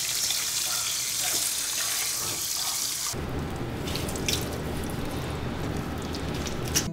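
Water spraying steadily from a handheld shower hose onto a wet cat's fur. After about three seconds the spray stops abruptly, leaving softer splashing and dripping.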